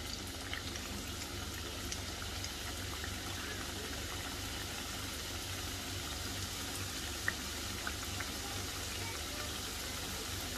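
Hot oil sizzling steadily around discs of rolled flour-and-semolina dough deep-frying in a pan at low-to-medium heat, with scattered small pops, one sharper a little past the middle.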